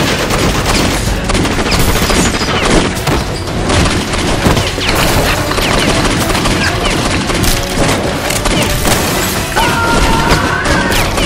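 Explosion and gunfire sound effects dubbed over toy-blaster action, a dense run of booms and rapid shots with music underneath.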